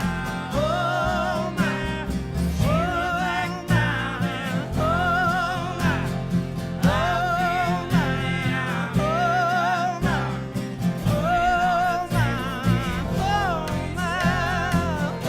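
Live acoustic country-folk band playing: a melody of held, wavering notes about a second each, over guitar accompaniment.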